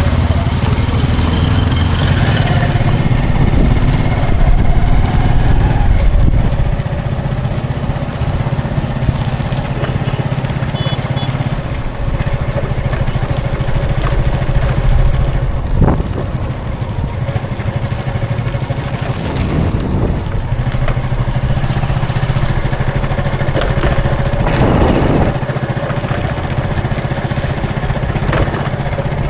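Busy road traffic: a steady mix of vehicle engines running and passing, louder for the first six seconds or so, with a few brief sharper sounds partway through.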